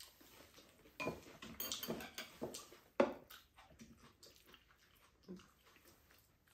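Chopsticks and a metal spoon clicking and clinking against ceramic bowls while eating, a few sharp clicks among softer taps, the loudest about three seconds in, with soft mouth sounds of chewing.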